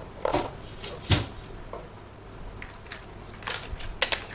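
Small toy kitchen set pieces being handled, giving scattered sharp clicks and knocks. The strongest come about a second in, with a cluster near the end.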